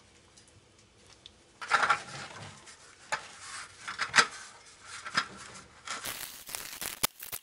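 Wet concrete mortar being packed into step formwork with a trowel and then screeded level with a straightedge, giving irregular wet scraping and slapping strokes. The strokes start about a second and a half in, and a quick run of sharper clicks and scrapes follows near the end.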